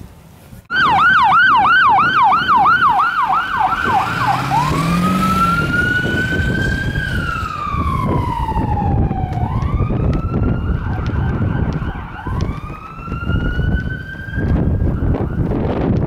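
Ambulance siren sounding loud as the ambulance passes. It starts about a second in on a fast yelp of about three sweeps a second, then switches to a slow wail that rises and falls.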